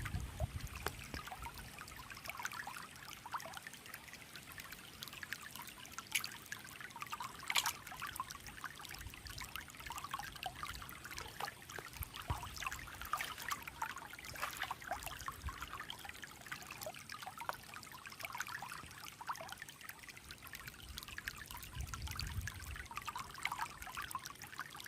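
Shallow mountain stream trickling and babbling over stones, with a couple of sharp clicks in the first third.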